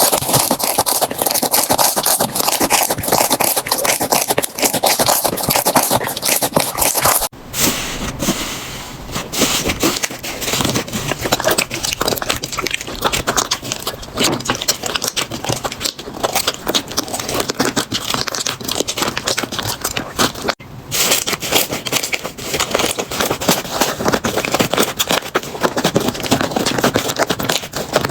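Slime being pressed and stretched by hand, giving a dense run of crackling, popping clicks with scraping. The sound breaks off briefly about 7 seconds in and again about 20 seconds in, where a new batch of slime is played with.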